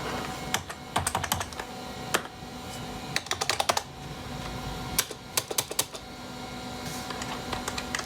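Keys typed on an Apple Design Keyboard in several short bursts of clicks with pauses between, as someone tries commands at a prompt. A steady low hum runs beneath the typing.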